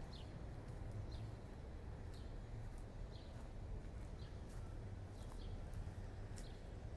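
Small birds chirping in short, high notes, one every half second or so and sometimes in quick pairs, over a steady low city hum.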